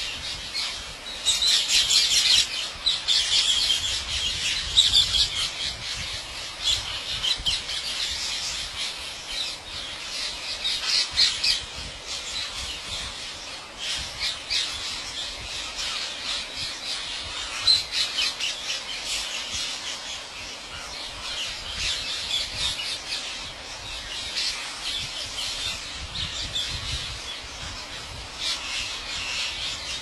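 A large flock of rose-ringed parakeets squawking all at once, a dense continuous chorus of harsh calls, loudest in the first few seconds.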